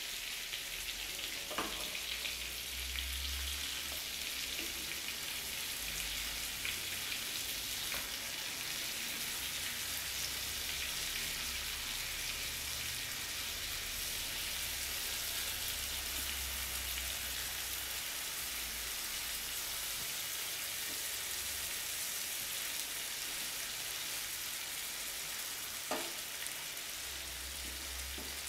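Tandoori-marinated chicken legs shallow-frying in a nonstick pan, the oil sizzling with a steady hiss. A few sharp knocks come from a wooden spatula turning the pieces, the loudest near the end.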